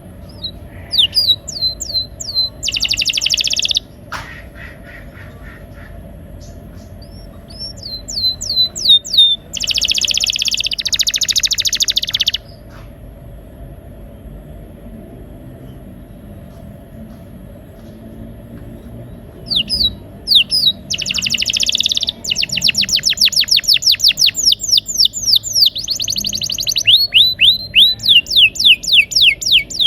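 Domestic canary singing in three bouts: quick falling whistles and dense buzzy trills, with a long rolling run of fast repeated notes in the last bout.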